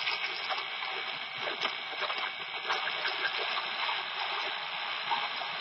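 Shortwave static hiss with scattered crackles from a County Comm GP-5DSP portable radio's speaker, tuned to WWV on 10 MHz with the volume turned up. The outdoor antenna's coax is held directly against its telescopic whip, bypassing the unshielded lead that had let in the computer's interference.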